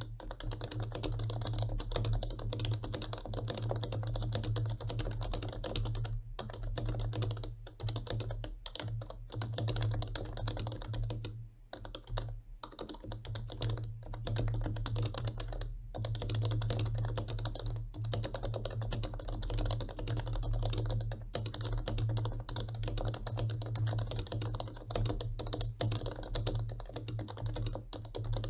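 Fast, continuous typing on an HHKB Professional Classic keyboard with Topre switches lubed with Krytox 205G0, a steady stream of keystrokes with a few short pauses.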